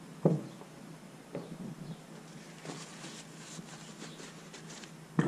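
Small metal transmission parts being handled on a workbench: one short knock about a quarter second in, then a few faint scattered clicks and taps.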